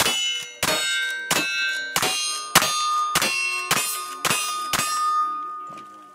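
Rifle, a lever-action, fired rapidly at steel targets: about nine shots a little over half a second apart, each followed by the ringing clang of a hit steel plate. The ringing of the last hit fades out near the end.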